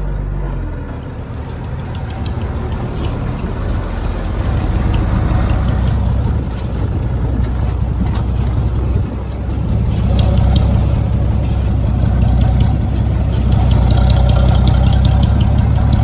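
Heavy diesel engine of earthmoving machinery running, growing louder about four seconds in and again about ten seconds in.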